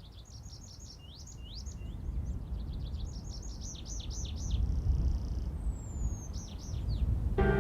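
Songbirds singing: quick runs of repeated chirps and short rising whistles, over a low steady rumble. Music comes in near the end.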